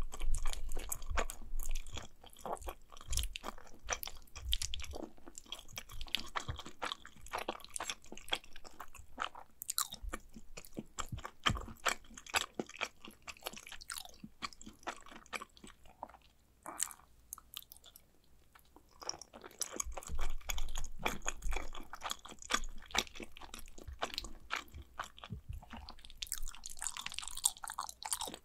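Close-miked chewing of mac and cheese: irregular wet mouth clicks and smacks. There is a quieter pause about two-thirds of the way through, then more chewing.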